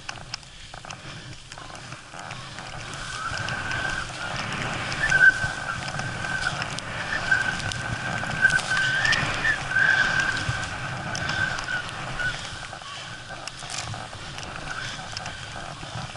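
Skis running through deep powder snow with wind rushing over the microphone, growing louder a few seconds in. A thin high whistle wavers through the middle few seconds.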